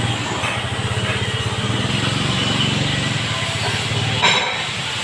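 A motor running steadily with a low, fluttering drone, with a short hiss about four seconds in.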